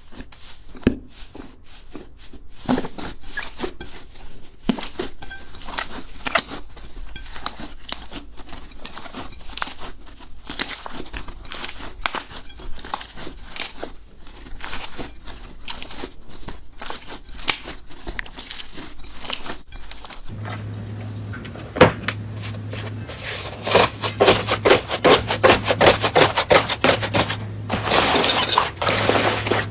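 Slime being squeezed and pressed by hand, giving dense irregular crackling and popping clicks. About two-thirds through, a cut to another slime clip brings louder, denser crackling over a steady low hum.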